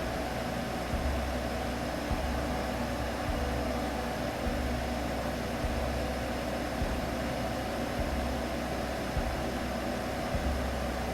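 Steady soothing sleep-aid noise: an even hiss with a low rumble that swells and fades every second or two.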